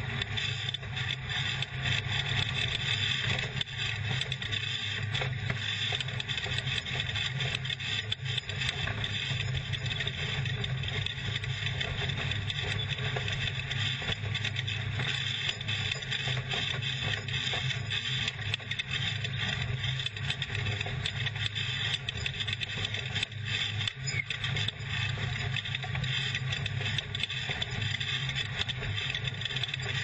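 Off-road race truck driving fast over rough desert dirt: the engine runs steadily under load, with continuous rattling and scraping from the chassis and tyres.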